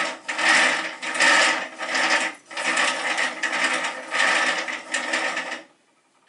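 Hand-worked rope-twisting rig whirring in repeated strokes, a little faster than one a second, as it twists fine thread into cord. It stops abruptly about five and a half seconds in.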